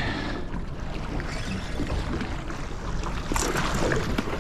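Small boat's outboard motor running at low speed under a steady rush of water and wind noise, with a louder rush of noise about three and a half seconds in.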